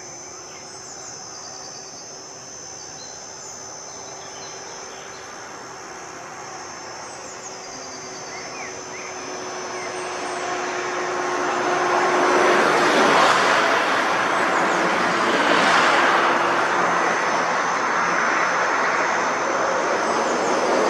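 Insects buzzing steadily, with a few short chirps. About halfway through, a vehicle's rushing engine-and-road noise swells up and drowns them, staying loud to the end.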